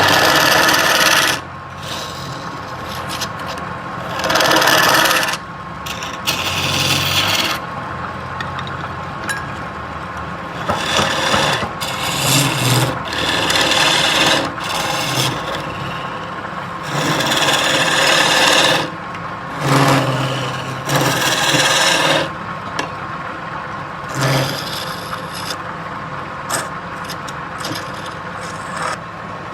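Wood being worked on a running lathe: a tool scrapes against the spinning workpiece in repeated passes of a second or two each. A steady motor hum runs underneath.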